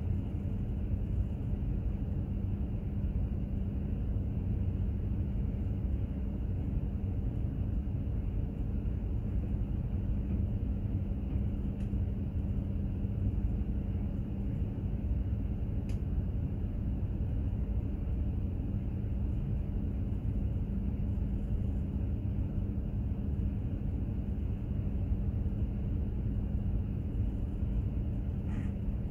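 Steady low rumble of a container ship under way, with a constant hum running through it from the ship's engine and machinery.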